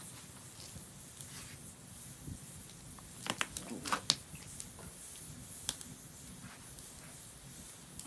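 Scattered sharp clicks and light taps, with a quick cluster of them about three to four seconds in.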